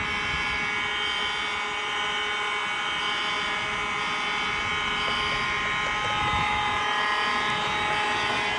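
A steady mechanical drone with several humming tones. Through it a faint, high-pitched fire alarm sounder comes and goes, half drowned out.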